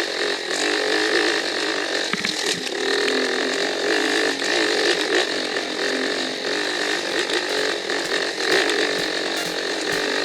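Enduro motorcycle engine running, its pitch wavering up and down as the revs change.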